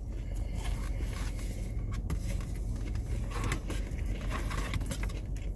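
Steady low hum of a car's engine idling, heard from inside the cabin, with a few faint rustles.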